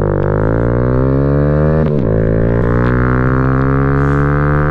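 2017 Kawasaki Z125's single-cylinder four-stroke engine pulling hard under acceleration, its pitch climbing, dropping sharply about two seconds in at an upshift, then climbing again.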